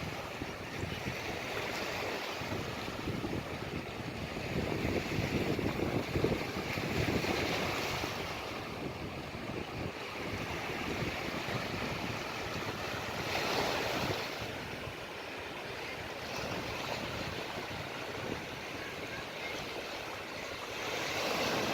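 Ocean waves washing in and breaking, a steady rush that swells and eases every few seconds, with one stronger surge about two-thirds of the way through.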